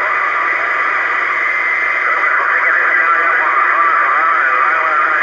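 A transceiver's speaker playing a weak, distant radio signal: wavering, garbled voices buried in static and hiss, too distorted to make out. The sound is narrow and tinny, like radio audio.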